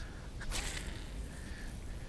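A quick swish about half a second in as a fishing rod is cast, with line running off the reel, over a low rumble of wind and handling on the body-worn microphone.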